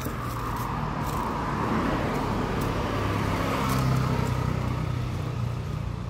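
A motor vehicle engine running close by, a steady low hum that swells to a peak about four seconds in and then eases off, as when a vehicle passes.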